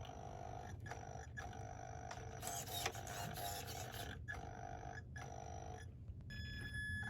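Treadmill motor and belt running with a faint, steady hum, with a brief hiss a little under halfway through.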